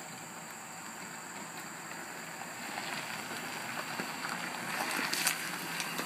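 Shortened Saturn SC2 coupe driving slowly over gravel, its tyres crunching and popping stones. The sound grows louder as the car comes closer, with the sharpest crunches near the end.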